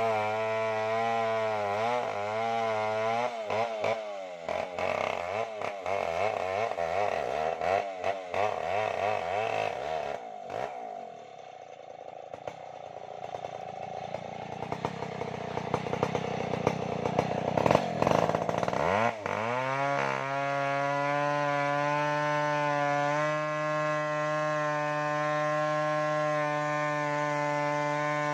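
Stihl MS070 two-stroke chainsaw cutting wood, its engine note wavering under load, with rough crackling and clicks through the middle. About two-thirds of the way in the engine settles into a steady, even note.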